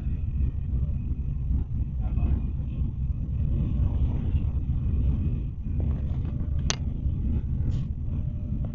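Steady low rumble of a fast passenger train running, heard from inside the carriage, with a brief sharp click about seven seconds in.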